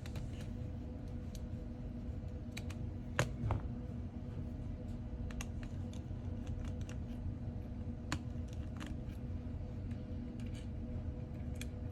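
Small tools clicking and tapping on the parts of a disassembled iPhone 14, in scattered single clicks about once a second, the loudest a little over three seconds in. A steady low hum sits underneath.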